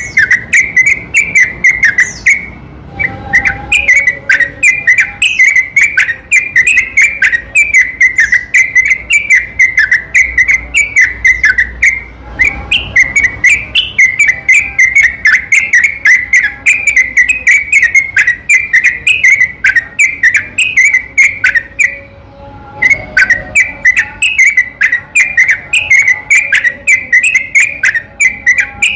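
Yellow-vented bulbul (trucukan) in long, unbroken rapid-fire song: quick bubbly whistled notes tumbling one after another, broken by brief pauses three times.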